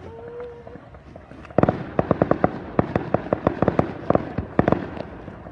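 Fireworks crackling: a rapid string of sharp pops and cracks, several a second, starts about a second and a half in and keeps going.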